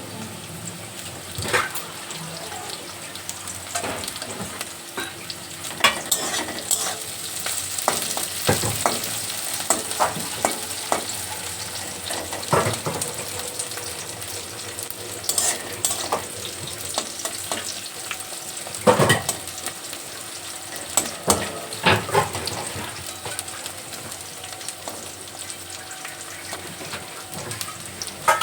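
Cashew nuts and raisins sizzling as they fry in a pan, stirred, with a scrape or knock of the stirring spoon against the pan every second or two.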